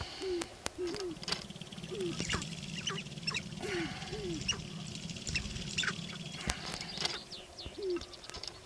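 Male sharp-tailed grouse displaying on a lek: many short, low, falling coos mixed with higher, quick downward-sweeping calls. Under them runs a steady, rapid rattle from the dancing birds' stamping feet and rattling tail feathers, which stops about seven seconds in.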